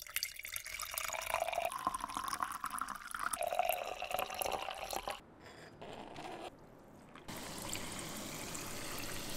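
Sparkling water poured from a bottle into a glass, splashing as it fills. It stops about five seconds in, and after a short pause a second pour runs on as a steady hiss.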